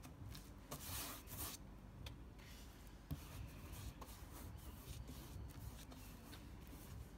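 A paintbrush swishing thick paint across a wooden furniture panel: faint, repeated brushing strokes.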